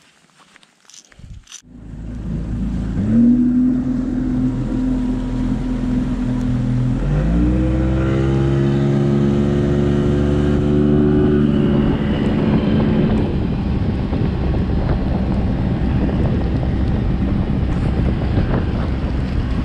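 Bass boat's outboard motor running at speed over the water, with wind and hull rush. About seven seconds in, the engine note rises in pitch as the boat speeds up and then holds steady. In the last few seconds only a steady rush of wind and water is left.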